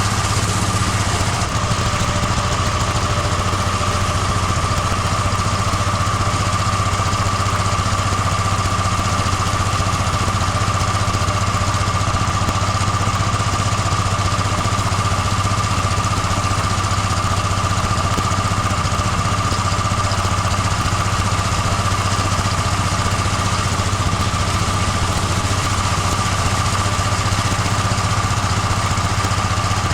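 Gas-engine pressure washer running steadily at full throttle, with the hiss of the high-pressure water spray on concrete.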